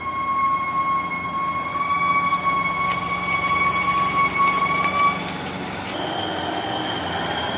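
Light diesel truck's engine straining at high revs on a slippery climb, with a steady high whine over it. The whine stops about five seconds in and a higher tone follows. The truck is failing to get up the slope.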